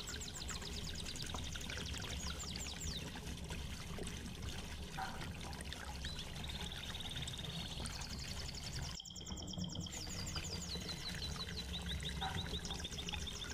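Canary singing: long runs of fast, evenly repeated high chirps forming rolling trills, over a steady low hum.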